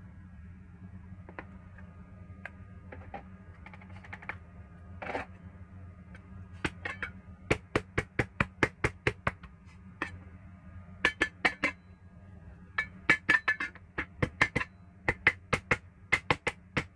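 Chinese cleaver chopping peeled raw shrimp on a wooden cutting board, mincing them. The blade knocks sharply on the board in quick runs of strokes, starting about six seconds in, over a steady low hum.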